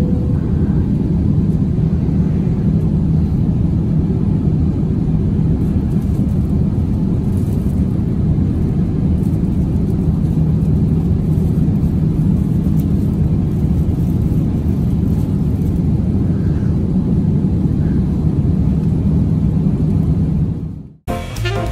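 Steady cabin drone of an Airbus A350-900 in flight, heard from an economy seat: its Rolls-Royce Trent XWB engines and the airflow make a loud, even rumble with a low hum. Near the end it cuts off suddenly and jazz music with saxophone and drums begins.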